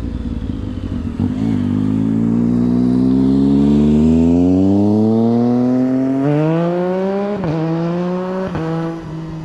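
FPV quadcopter's brushless motors and propellers whining, climbing steadily in pitch as the throttle is held on. Near the end they dip sharply twice as the throttle is chopped, then settle at a lower, steady pitch.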